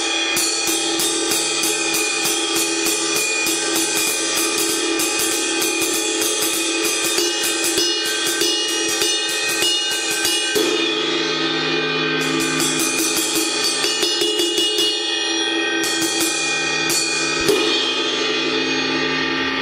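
Paiste PST 5 22-inch rock ride cymbal struck with a wooden drumstick in a steady run of ride strokes. It is muffled with Moongel to cut its ringing. A lower ringing tone comes in about halfway through.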